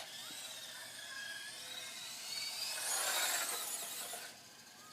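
A radio-controlled car's small electric motor whining as it runs, revving up to its loudest about three seconds in and then dropping away, with a rattling mechanical noise underneath.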